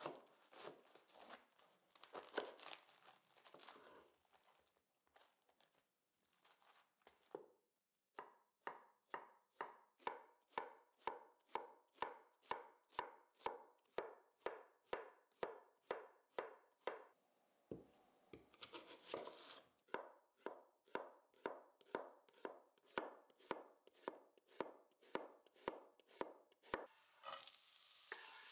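Chef's knife cutting a pointed cabbage on a wooden board: a few irregular crunching cuts at first, then steady shredding chops about three a second, each stroke ending with a tap of the blade on the board. Near the end a steady sizzle starts as sliced onions fry in oil in a pan.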